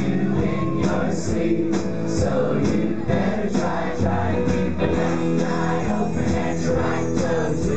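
Live rock band playing: electric guitar, bass guitar, keyboard and drums keeping a steady beat, with voices singing over it.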